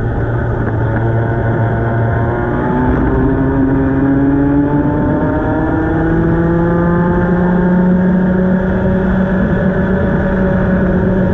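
Club 100 racing kart's engine heard from an onboard camera at race pace, its pitch climbing steadily as the kart accelerates out of a corner, holding high along the straight, then dropping near the end as it slows for the next corner.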